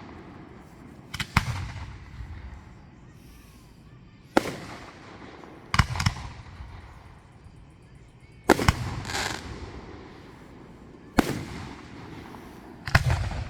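Fireworks bursting: six sharp bangs a second or two apart, some in quick pairs, each followed by a rumbling echo that dies away.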